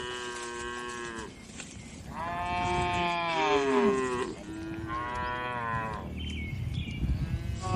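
Cattle mooing, several long calls one after another, some overlapping. The loudest is about two to four seconds in.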